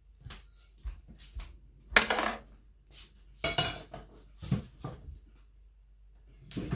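Cutlery clinking and scraping against a plate as food is cut, a series of short separate knocks and scrapes, the loudest about two seconds in.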